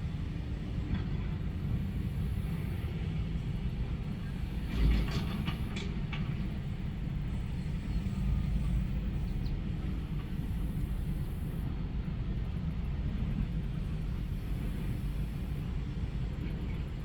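Heavy diesel construction machinery running with a steady low rumble. About five seconds in there is a short metallic clank and rattle, followed by a few lighter clicks.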